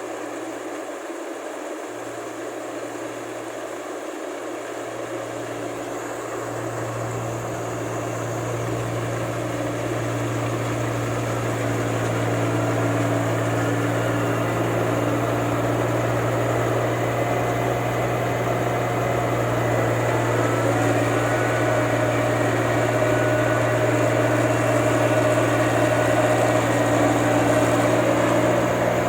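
Rice combine harvester's engine running steadily with a deep hum, growing louder over the first dozen seconds and then holding level.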